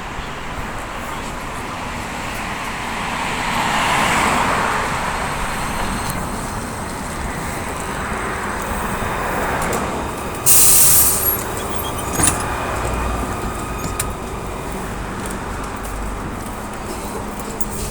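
AKSM-321 trolleybus running, with steady road and running noise. About ten seconds in there is a loud, brief hiss of compressed air from the pneumatic system, then a sharp click.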